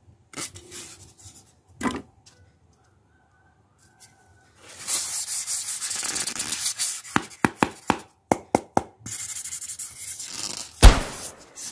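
Polystyrene foam packing blocks rubbing and scraping as hands work them out of a cardboard box, with a run of short, sharp scrapes in the middle and one loud thump near the end.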